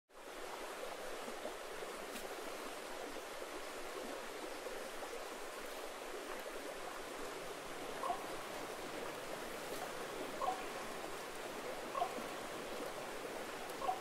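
Shallow stream running steadily over rocks, an even rushing babble of water. From about eight seconds in, short pitched notes sound every second or two, five in all.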